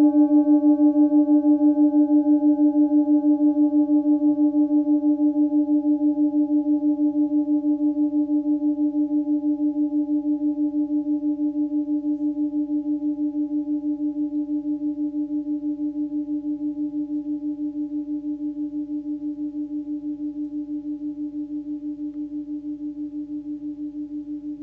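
A 16 cm Tibetan singing bowl with its fundamental near 299 Hz (D) rings on after a padded-mallet strike, slowly dying away. The low tone pulses evenly throughout. Its higher overtones fade out over the first ten seconds or so, leaving mainly the low hum.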